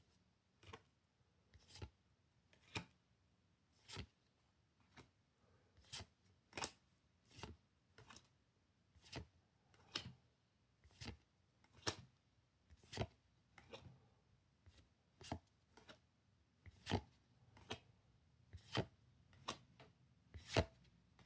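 Trading cards being handled one at a time as a pack is gone through: a short, sharp card flick or tap about once a second.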